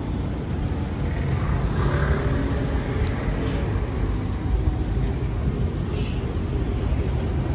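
NABI 40-LFW hybrid-electric transit buses pass close by in street traffic with a steady low engine rumble, and a brief hiss about six seconds in.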